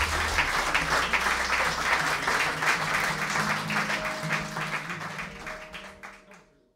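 Audience applauding with many hands clapping, fading out near the end.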